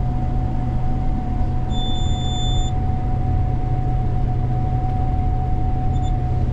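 Gleaner combine running steadily, heard inside the cab: a constant low machine drone with a steady hum. About two seconds in, a single electronic beep sounds for about a second, and a short blip follows near the end.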